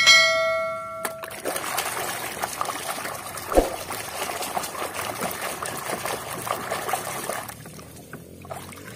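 Muddy water sloshing and trickling as a hand swishes a toy around in a tub. At the start a ringing chime tone fades out over about a second and a half, and about three and a half seconds in there is a single knock.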